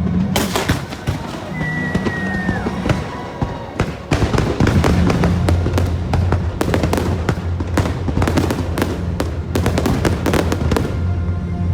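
Fireworks show: a dense run of fireworks bursts and crackles, thinning briefly and then coming thick and fast again, over the show's loud musical soundtrack. A short falling whistle sounds about two seconds in.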